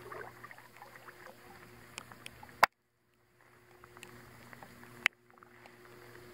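Kayak paddling: paddle strokes in the water with scattered small ticks and drips, and two sharp knocks, about two and a half and five seconds in, each followed by a moment of near silence.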